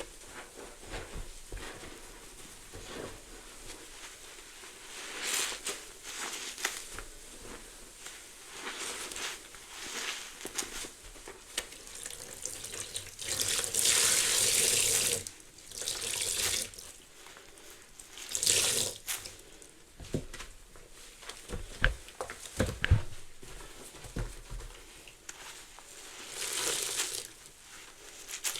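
Soapy sponge being squeezed several times, water and suds streaming out in hissing gushes, the longest about midway, with fizzy crackling of the foam between squeezes.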